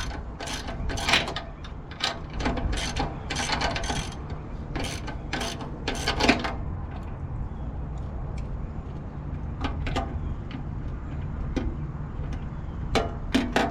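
Ratchet wrench clicking in short repeated strokes as a fender-mount bolt is tightened, for about six seconds, then only a few scattered clicks and knocks.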